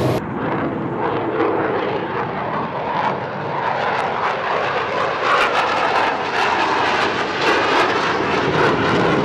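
Fighter jet flying past, its engine roar steady, then harsher and crackling from about halfway through.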